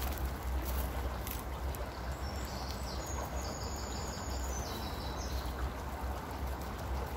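Steady rush of a flowing river, with a low rumble underneath.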